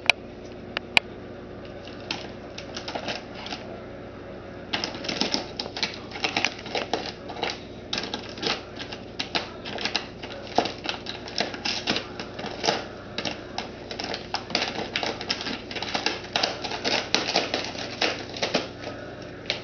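A cat clawing and biting at bags of dry cat food, the bag material crinkling and crackling in rapid, irregular scratches that thicken into a near-continuous crackle from about five seconds in.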